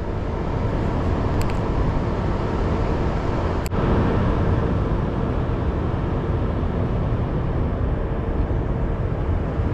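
Steady low industrial drone with a constant hum, from the bauxite ship loader and the moored bulk carrier being loaded. A single sharp click comes a little under four seconds in.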